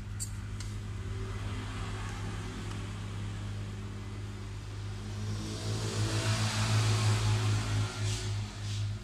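Hair dryer running with a steady motor hum and rush of air, heating the screen to soften the glue between the LCD and touchscreen; the air noise grows louder for about three seconds past the middle.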